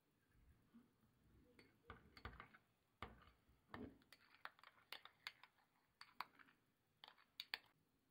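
A spoon clicking and tapping against the side of a drinking glass while stirring milk, breaking up a pink strawberry block in it. The sharp clicks begin a little after the start and come irregularly, about one or two a second, until just before the end.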